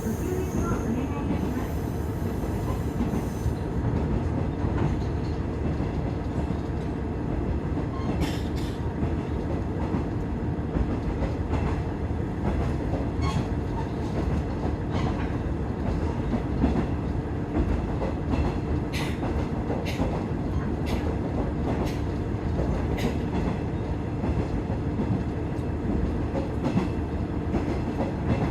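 On-board running noise of an Iiyama Line diesel railcar: a steady low rumble and hum from the engine and wheels on the rails, with scattered sharp clicks over the track.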